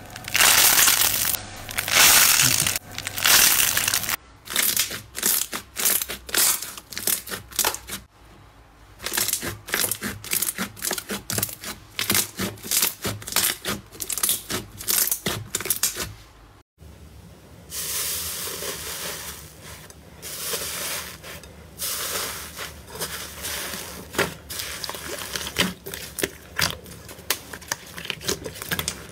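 Hands squeezing and kneading slime, giving dense runs of crackles, pops and squelches. After a brief break about two-thirds of the way through, the popping continues over a steadier crackling wash.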